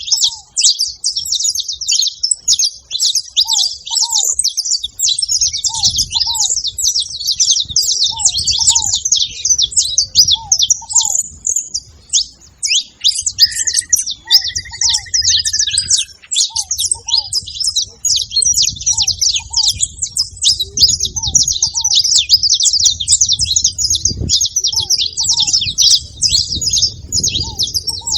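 Saffron finch chirping in a dense, unbroken run of high, rapid notes, with a lower paired note repeating every second or two beneath it.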